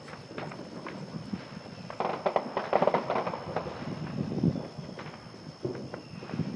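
Firecrackers and fireworks popping in scattered rapid crackles, thickest about two to three and a half seconds in.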